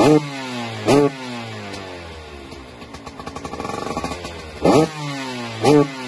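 TM SMR 125 FI fuel-injected two-stroke single revved hard through its stock silencer. It gives four sharp throttle blips in two pairs, each followed by the revs falling back toward a crackly idle.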